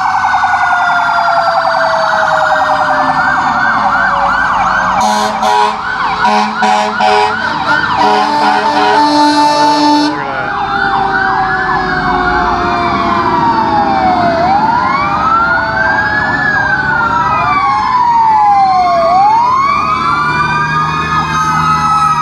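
Several fire truck sirens sounding at once and overlapping, with fast yelping early on, then slow rising-and-falling wails. Between about five and ten seconds in, a run of short, loud horn blasts cuts in over the sirens.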